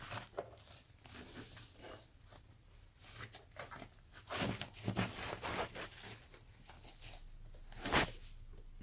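Thin plastic protective bag rustling and crinkling in irregular bursts as a flat-panel monitor is slid out of it, with a sharp, louder crackle near the end.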